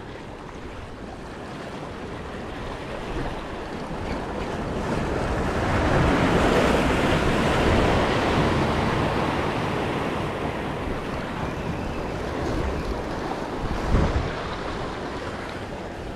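Sea waves washing against the rocks of a jetty, swelling into a breaking wave about halfway through and then ebbing, with wind on the microphone and a brief thump near the end.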